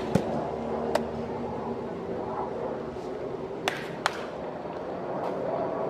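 Baseball bats cracking against balls in soft-toss batting practice: one hit right at the start, one about a second in, and two close together a little past the middle, over a steady background murmur.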